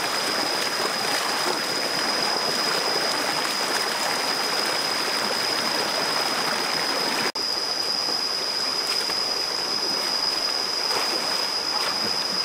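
Shallow rocky stream running over stones, a steady rushing of water. A steady high-pitched whine sits above it, and the sound drops out for an instant about seven seconds in.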